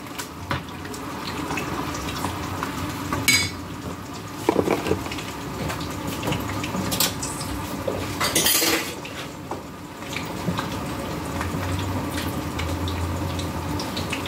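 A skillet of squash in tomato broth simmering on the stove, with a utensil knocking against the pan a few times.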